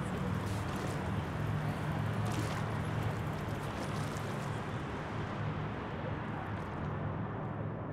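Steady low engine rumble over a wide bed of outdoor city noise, with no strokes or changes in pitch; a faint hiss on top fades away in the second half.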